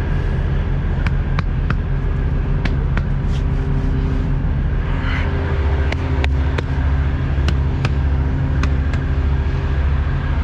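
Semi truck's diesel engine idling steadily, with scattered sharp clicks over it.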